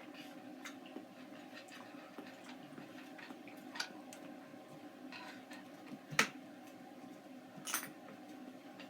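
Quiet eating sounds: a utensil clicking and clinking against a container of canned pears, with scattered soft clicks and a sharper click about six seconds in and another shortly after, over a steady low room hum.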